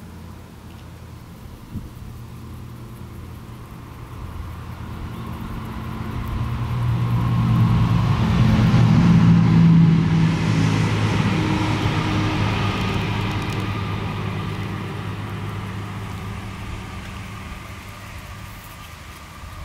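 A motor vehicle passing by. Its engine and tyre noise builds, is loudest about halfway through, then slowly fades away.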